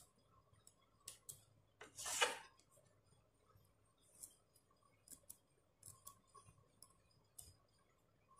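Small scissors snipping fabric, trimming the excess patch cloth close to the embroidered edge: scattered faint snips and clicks, with one louder brief cut-and-rustle about two seconds in.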